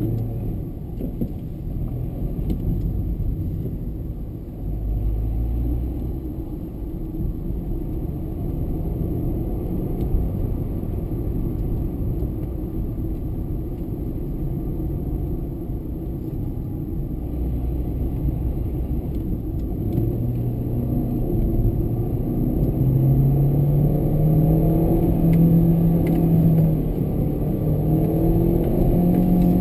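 VW Fox 1.0's engine and road rumble heard from inside the cabin while driving. From about twenty seconds in, the engine is pushed harder, its note climbing in pitch and growing louder toward the end.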